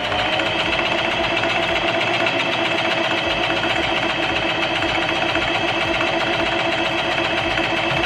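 Singer electric sewing machine running steadily at speed, the needle stitching rapidly through cotton fabric with an even, fast beat.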